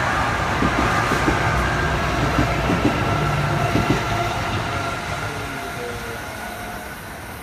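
NJ Transit Arrow III electric multiple-unit train passing at speed, its wheels clicking over rail joints, then fading away as it recedes after about four seconds.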